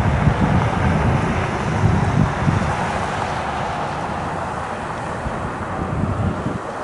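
Gusty wind buffeting the camcorder's microphone: an irregular low rumble over a steady rushing noise, easing a little near the end.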